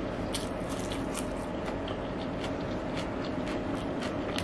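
Chewing of a mouthful of biryani, with many small sharp mouth clicks and fingers working the rice on the plate, over a steady background hum.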